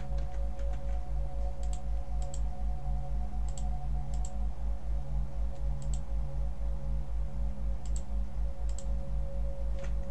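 Computer mouse clicking about nine times, singly and in quick pairs, as wires are drawn in a circuit-design program. Underneath runs a steady low hum that throbs about four times a second, with two faint steady tones.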